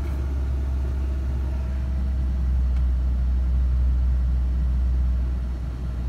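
Ford Ranger engine holding a high idle near 2,000 rpm with the HVAC load on, a steady low drone that gets a little louder about two seconds in. The owner says it runs rougher with the HVAC on and suspects a failing idle air control valve.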